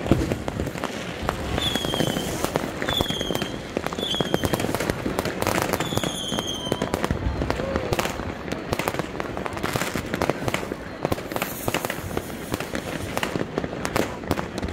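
New Year's fireworks and firecrackers going off nonstop: a dense run of bangs and crackles. Four short high whistles, each dropping slightly in pitch, come over it between about two and seven seconds in.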